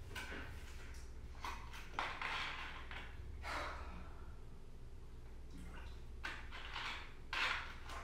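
A person moving about a small tiled room: a few short, soft swishes and breaths over quiet room tone.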